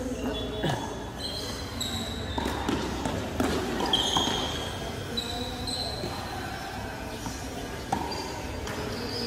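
Tennis ball struck by rackets and bouncing on a hard court, a few irregular knocks in a large covered hall, with many short high squeaks between them.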